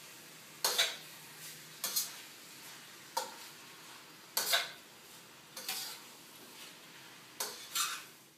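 A utensil scraping and clanking against a wok as chicken livers and bacon are stirred and browned, seven strokes roughly a second or so apart, two close together near the end, over a faint steady sizzle of frying.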